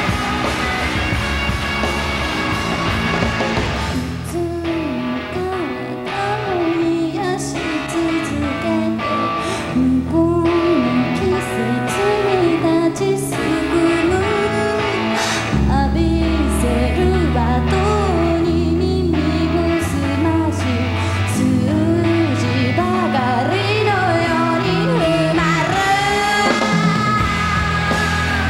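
Live rock band with a female singer: electric guitar and drums play a loud, dense instrumental passage, and the lead vocal comes in about four seconds in and carries on over the band.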